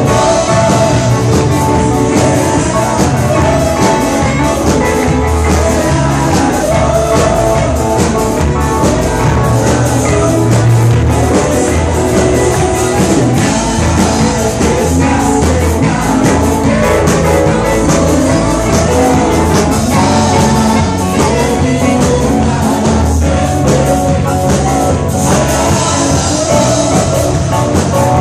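Live worship music played loud and without a break: a band with drum kit, guitars and keyboard, singers on microphones, and the congregation singing along.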